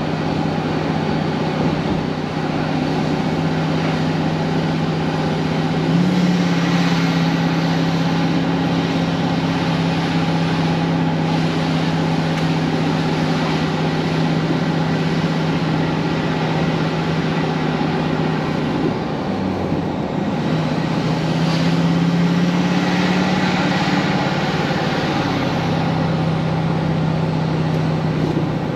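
Vehicle engine and road noise heard from inside while driving. The engine's steady hum steps up in pitch about six seconds in, dips around twenty seconds in, then rises again.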